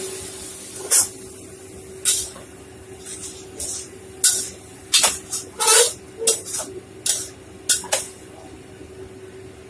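A metal spatula scrapes and clanks against a wok while shredded potatoes are stir-fried: about a dozen short, irregular scrapes that stop near the end. Underneath are a faint frying sizzle and a steady low hum.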